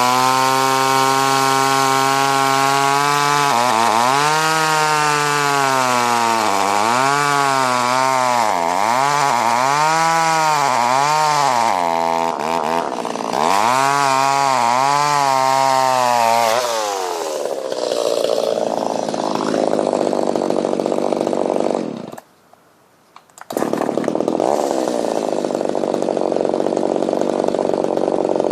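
Kioritz Echo CS-280E two-stroke chainsaw running at high speed, then revved up and down over and over, about once a second. About two-thirds of the way through the engine note sinks under load into a rough, noisy cut through wood. Near the end the sound drops out for about a second.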